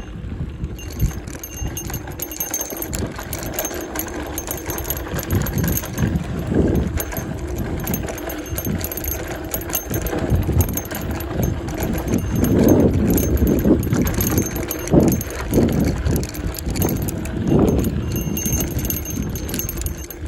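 Mountain bike ridden over a rough dirt trail: the knobby tyres run on dirt and the bike rattles and knocks over bumps and rocks, getting louder and busier in the second half.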